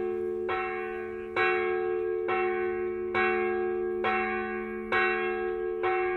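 Church bell tolling steadily, one strike a little under every second, each ringing on into the next.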